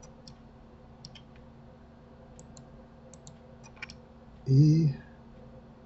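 Scattered light computer mouse and keyboard clicks, a dozen or so spread irregularly. About three-quarters of the way through, a person's brief voiced hum lasting about half a second is the loudest sound.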